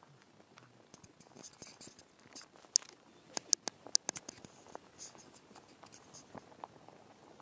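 A crowd of rabbits eating, their chewing making many crisp, irregular crunching clicks. The clicks are densest and loudest from about one to five seconds in, then thin out.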